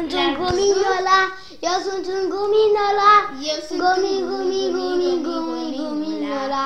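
A child singing in long held notes, with a brief break about one and a half seconds in and the pitch stepping down near the end.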